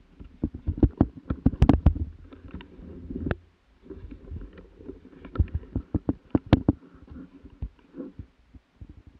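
Handling noise from a camera carried on a moose-hunting dog: rumbling rubbing with many sharp knocks and clicks as the dog moves through brush and forest floor. The knocks come in clusters, a dense run in the first three seconds and another around five to seven seconds in.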